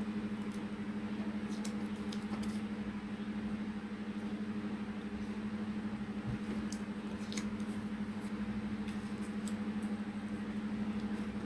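A steady low hum runs throughout, with a few faint light ticks and rustles of small paper pieces being handled and pressed onto a card.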